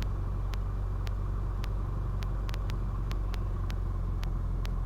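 Cessna 172's piston engine running steadily at low power before the takeoff run, a constant low drone in the cockpit. Faint clicks come through about every half second.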